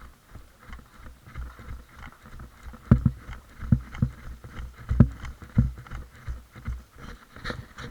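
Footsteps thudding at a brisk pace, one roughly every half to three-quarters of a second, louder from about three seconds in, with faint rustling between them.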